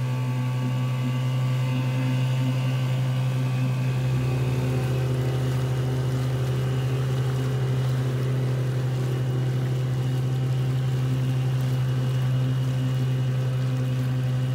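Small outboard motor on an inflatable dinghy, running at a steady speed while under way, with one even low engine note. A deeper rumble joins about four seconds in.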